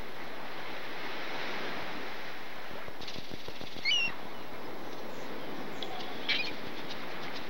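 Beach ambience: a steady wash of surf with a few short, high gull calls, one pair about four seconds in and another about six seconds in.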